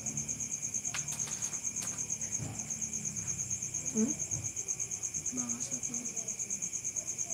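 A cricket trilling steadily: a fast, pulsing high trill with no break. A couple of faint clicks come about one and two seconds in.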